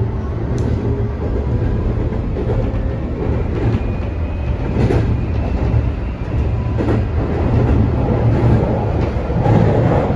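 Toei 5500 series electric train running, heard from inside the car: a steady low rumble of wheels on rail with scattered knocks from rail joints. Faint whining tones come and go, from the Mitsubishi full-SiC VVVF inverter and its induction traction motors.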